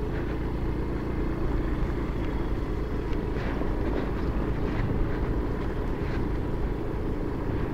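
Yamaha Mio automatic scooter's engine running steadily as it rides along a dirt track, with a low rumble of wind and road noise.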